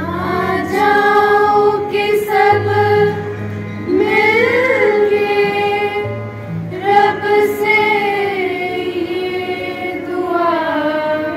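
A girls' choir singing a devotional prayer together in one melody, over steady held chords from a harmonium that change every few seconds.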